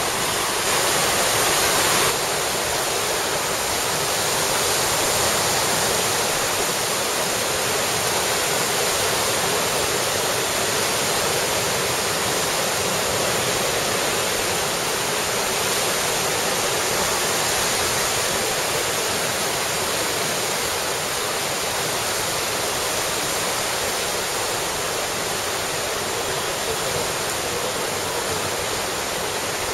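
Steady rush of a fast tidal current swirling in whirlpools and breaking into white water.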